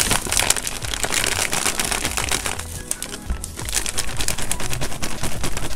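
Plastic and foil packaging crinkling and rustling as a large bag of whey protein isolate is pulled from a cardboard box and handled, over background music.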